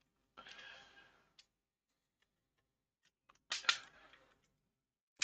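Plastic shell halves of a PS4 DualShock 4 controller being pressed back together: a short scraping rub under a second in, then sharp clicks about three and a half seconds in as the clips snap into place.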